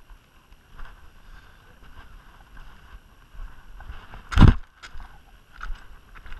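Low rumble of wind on the microphone, with one loud, short thump about four and a half seconds in and a few faint clicks after it.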